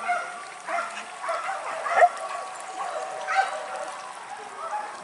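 Hunting dogs yelping and barking at irregular intervals, a pack working a wild boar hunt. A single sharp knock about two seconds in.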